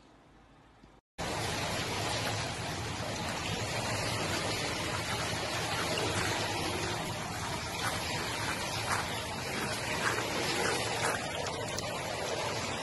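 After about a second of silence, steady sloshing and splashing of water as a small fluffy dog in a life vest paddles through it, with small splashes now and then.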